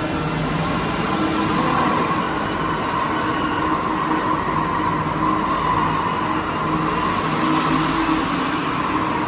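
Stationary Alstom NS-16 rubber-tyred metro train standing at the platform, its air-conditioning and onboard equipment giving a steady hum and whir with a high whine that grows a little louder about a second in.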